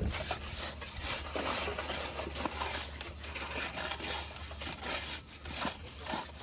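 Faint, irregular scraping and rubbing of hand tools on wet concrete and wooden step forms, over a low steady hum.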